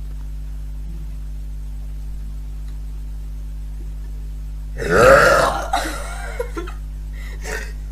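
A woman's loud burp about five seconds in, lasting about a second and wavering in pitch, followed by a few shorter, quieter sounds. A steady low hum runs underneath.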